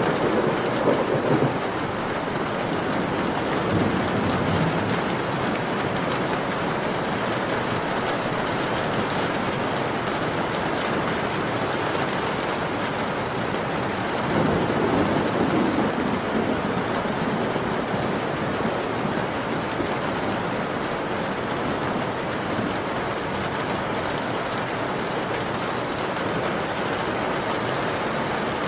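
Steady rain falling, with low rolls of thunder that swell at the start, a few seconds in and again about halfway through.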